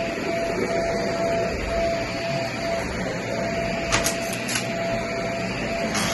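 Shark vacuum cleaner running over carpet with a steady motor whine, and a couple of short crackles about four seconds in as crunchy debris is sucked up.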